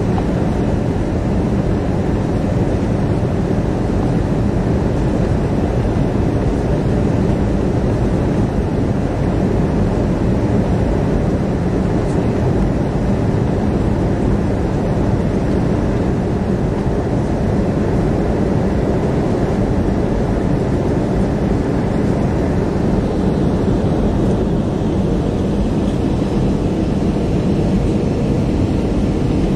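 Steady cabin noise of an airliner on its landing approach: engines and rushing air, an even low rumble with no change.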